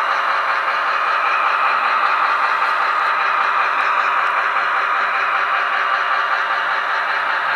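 Sound decoder of an HO-scale Broadway Limited Paragon 2 SW7 switcher model playing a steady EMD diesel engine sound through its small onboard speaker, the decoder setting the engine sound to match the locomotive's running at speed step 15 of 28.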